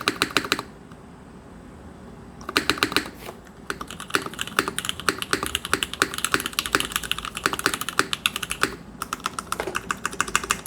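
Typing on a top-mounted Krush65 mechanical keyboard: a quick run of key presses, a pause, then slower single key strokes each with a deeper clack, and fast typing again near the end.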